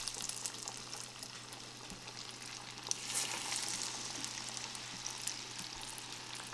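Breaded pickle chips deep-frying in hot oil in a small saucepan, a steady sizzle full of small crackles that swells about three seconds in.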